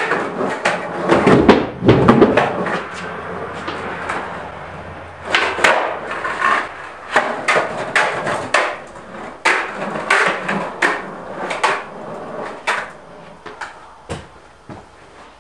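Skateboard on a concrete floor: wheels rolling, with a run of sharp clacks from the tail popping and the board slapping down.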